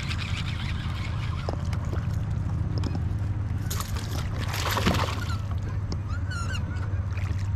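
Steady low wind rumble on the microphone over open water. A brief louder rush of noise comes about four to five seconds in, and a bird calls a few times near the end.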